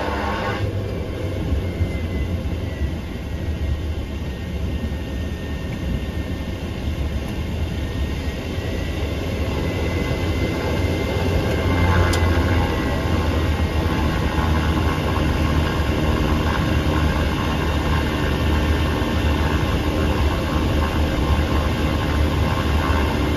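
Light propeller aircraft's engine running at low power, heard from inside the cockpit as a steady low drone with rumble, while the plane rolls out and taxis after landing.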